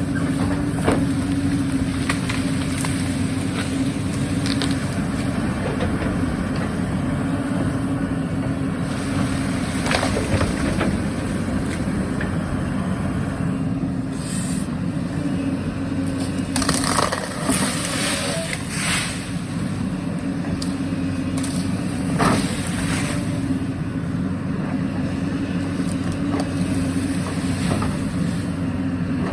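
Excavator's diesel engine running steadily under load, with the bucket scraping and knocking against soil and rock in short bursts several times as it digs.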